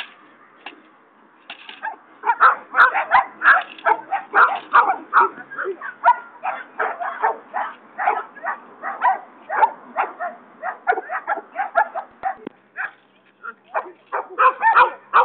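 Several dogs barking in fast, overlapping volleys, worked up by a handler's agitation in protection training. A few scattered barks at first, then constant barking from about two seconds in.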